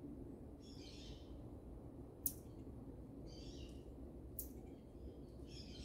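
Marmosets calling: two short, sharp high-pitched chirps about two seconds apart, between softer bouts of high twittering.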